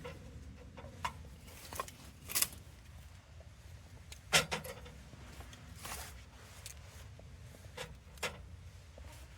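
Scattered knocks and clinks of objects being handled, the loudest about four seconds in with a brief ring, over a low steady rumble.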